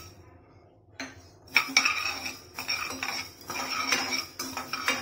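A spatula stirring and scraping coriander seeds around a dry, hot kadai as they are dry-roasted. The pan rings with each stroke, in quick repeated strokes that start about a second and a half in.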